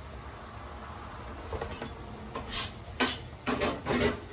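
Clam adobo simmering in a stainless steel pan on a gas burner, a faint steady bubble, then from about a second and a half in a series of sharp metallic clinks and knocks, like pots and utensils, the loudest a few strokes in the last second and a half.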